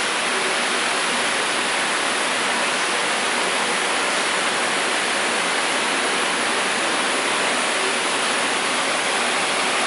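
Steady rushing background noise, even throughout with no rhythm or distinct strikes, such as the ambient noise of a machine workshop.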